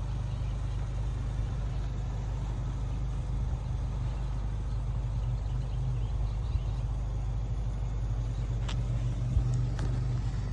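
Predator single-cylinder small engine on a lawnmower running steadily at an even speed, with a few faint clicks near the end.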